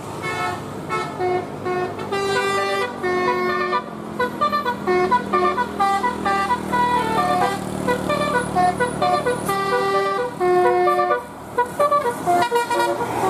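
A bus telolet horn, a set of multi-tone horns sequenced to play tunes, running through a fast melody of short stepped notes with a brief break near the end. A low steady hum sits underneath.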